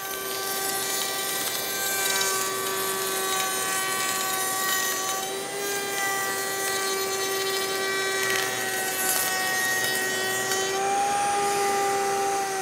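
Table-mounted router with a 3/8-inch beading bit running and cutting a bead profile along a long 1/2-inch board: a steady motor whine over the hiss of the cut.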